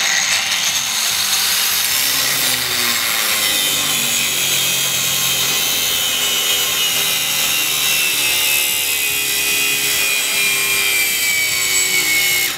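Grand MSHU-125-1550SE angle grinder grinding a rusty steel plate under heavy load, drawing about 1.6 kW. Its grinding noise is loud and steady, and its whine slowly falls in pitch as the motor is pressed down: the grinder is being loaded to test its constant-speed electronics and overload protection.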